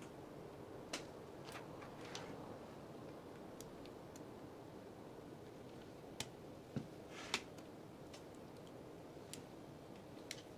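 Small, faint clicks and taps at irregular intervals as tweezers and fingers handle a smartphone main board being fitted into its frame, over a steady low hiss.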